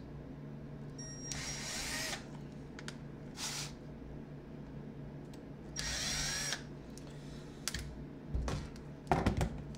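Cordless impact driver run in three short bursts, backing screws out of an old pneumatic palm sander's housing. A few knocks near the end as the tool and part are handled.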